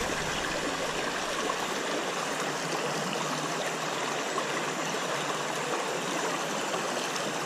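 Shallow river riffle: water running steadily over rocks.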